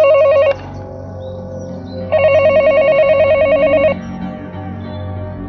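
Electronic gate-intercom ringing tone, a fast warbling trill, heard twice: the first ring cuts off about half a second in, the second starts about two seconds in and lasts nearly two seconds.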